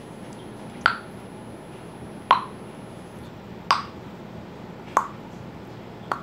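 Blue homemade slime being stretched and pressed, letting out sharp pops as air pockets burst, five of them about every second and a half.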